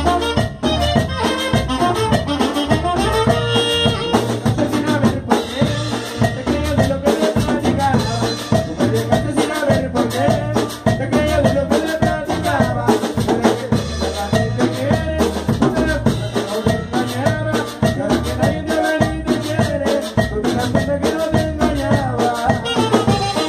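Norteño band playing live, with saxophone and button accordion over bajo sexto, electric bass and drums keeping a steady beat.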